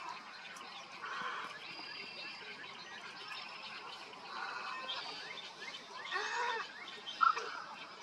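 Birds calling: harsh, scratchy calls come every couple of seconds over thin, high chirps from small birds. A short, loud call sounds near the end.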